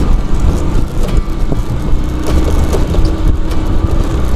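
Small fishing boat's engine running steadily with a loud low rumble.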